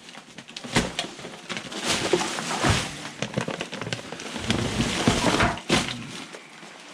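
Rummaging through discarded junk by hand: a crackling rustle of rubbish being shifted, with scattered clicks and knocks, busiest in the middle and near the end.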